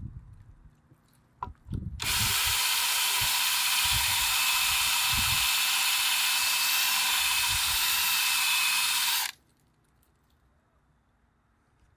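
Cordless drill spinning a countersink bit into the M8 barrel-nut hole in a carbon-fibre foil mast. It makes a steady, hissing whir that starts abruptly about two seconds in and stops suddenly about seven seconds later.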